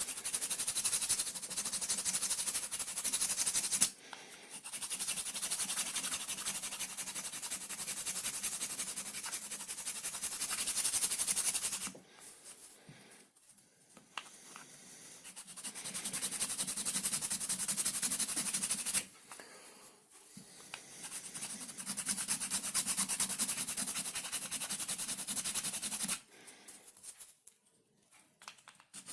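A small power tool working plywood, a fast rasping buzz with a low hum underneath. It runs in four stretches of several seconds, cutting off abruptly about 4, 12 and 19 seconds in and again near the end, with short quieter gaps between.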